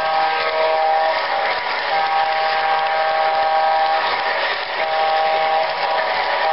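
Model train locomotive's electronic horn sounding a grade-crossing pattern: two long blasts and a short one, with the final long blast starting near the end, over the steady running noise of the train on the track.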